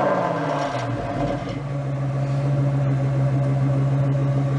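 Engine running: its pitch falls over the first second, then holds at a steady drone.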